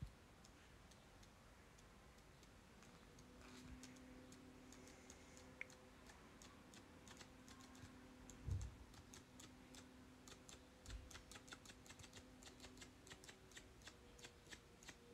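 Pages of a thick paperback storyboard book being flicked through by hand: a faint run of light paper flicks that starts a few seconds in and speeds up to several a second in the second half. A soft thump of the book being handled comes about halfway through.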